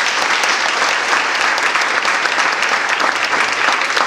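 Audience applauding steadily, many hands clapping to welcome a speaker to the podium.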